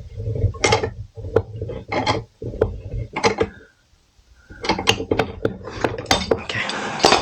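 Metal tools clinking and clattering as a G-clamp is wound in to push the rear brake caliper piston back, with a denser stretch of scraping and knocking in the second half.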